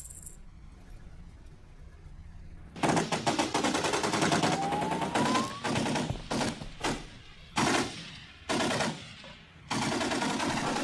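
Submachine gun firing rapid automatic bursts as a film sound effect. A long burst starts about three seconds in, short bursts follow in the middle, and another long burst runs near the end. A brief rising whine sounds over the first burst.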